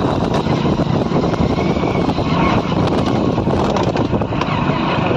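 Steady running noise of a vehicle travelling along a dusty dirt track, mixed with heavy wind buffeting on the microphone.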